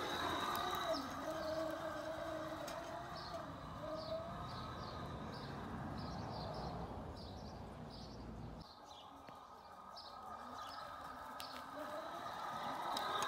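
Razor E200 electric scooter's motor whining as it is ridden, the pitch rising and falling with speed. The whine fades away about four seconds in and builds again near the end as the scooter comes back. Birds chirp throughout.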